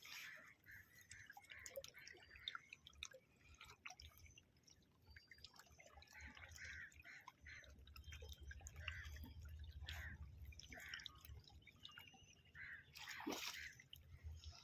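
Near silence with faint water sounds: scattered small drips and lapping, with a low rumble from about halfway through.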